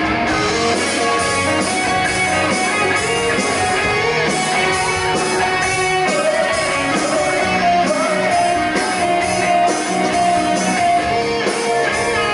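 Live amplified rock band playing, with an electric guitar carrying a sustained melodic lead line over bass guitar and drums.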